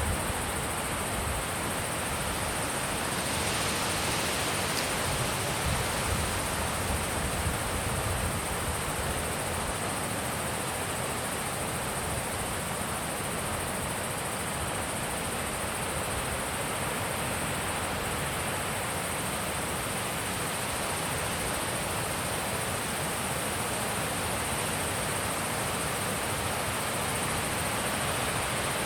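Wind blowing steadily, an even rushing noise with a faint steady high hiss above it.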